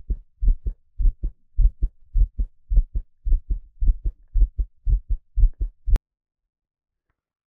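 A man's heartbeat: a steady run of low lub-dub thuds, nearly two beats a second. It cuts off with a click about six seconds in, leaving silence.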